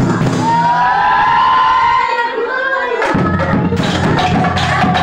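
Nagara naam devotional group singing: a woman's lead voice holds one long, gently bending sung note for about three seconds. Then the seated chorus comes in with fast rhythmic hand-clapping and low percussive thuds under the singing.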